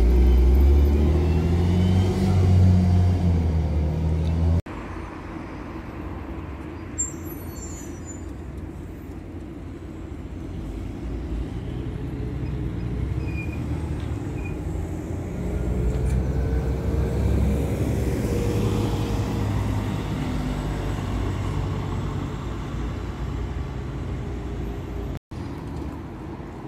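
Irisbus articulated city bus engine running loud and rising in pitch as the bus pulls away. After a sudden cut, another articulated bus passes close by with street traffic, its engine swelling and then fading.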